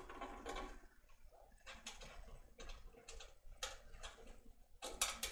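Screwdriver turning screws out of a Technics SU-V2X amplifier's metal case: a string of light, irregular clicks as the tool works and grips, with a few sharper clicks close together near the end.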